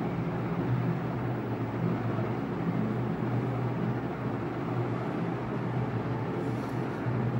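Steady low hum with an even background noise, unchanging throughout, with no separate knocks or clicks standing out.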